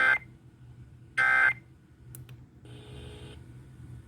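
Emergency Alert System digital data bursts: short buzzy bursts, one at the start and another about a second later, the end-of-message signal that closes the alert. A fainter buzz follows around three seconds in.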